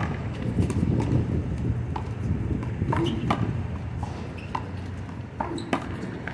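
Rubber handball smacked by hands and rebounding off the wall and court in a one-wall handball rally: a string of sharp slaps at irregular intervals.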